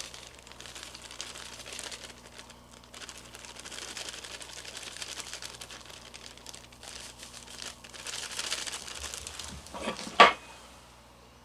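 Packaging crinkling and rustling as a freeze-dried breadcrumb and Parmesan topping is sprinkled out, then a single sharp knock about ten seconds in.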